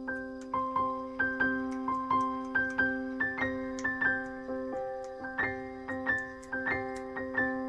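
Background piano music: a gentle melody of struck notes, two or three a second, over held chords.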